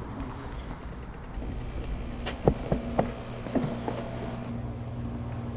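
A steady low machine hum, with a few sharp clicks and knocks between about two and a half and four seconds in.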